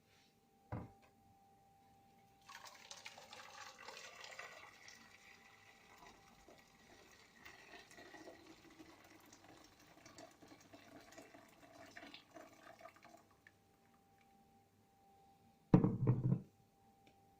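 Water pouring into a vessel for about ten seconds, starting a few seconds in. Near the end there is one loud, short clunk.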